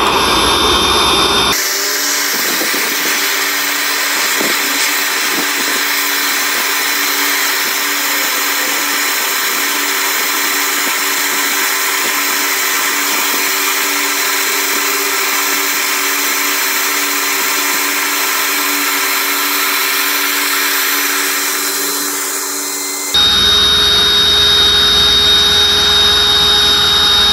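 Built-in electric fan pump of a Bestway inflatable single bed running steadily in deflate mode, drawing the air out of the mattress. The whir changes abruptly about a second and a half in and again a few seconds before the end, where the footage is fast-forwarded.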